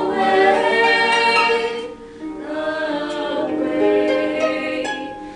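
Singing voices holding long, slow notes on the sung word "away", with several pitches sounding together in harmony.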